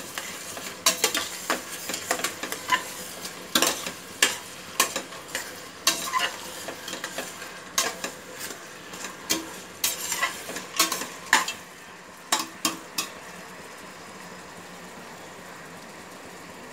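A metal spatula scraping and knocking against the inside of a stainless-steel pressure cooker as chopped onions are stirred and sautéed in hot oil, with a frying sizzle underneath. The stirring stops near the end, leaving only a faint sizzle.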